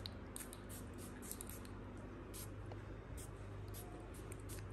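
Small perfume spray bottle spritzed several times onto a child's shirt: faint, short, high hissing puffs, with light rustling of clothing.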